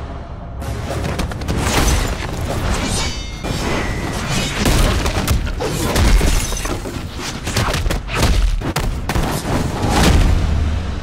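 A dense run of cinematic action sound effects, many heavy booms and impacts with some shattering, layered over music.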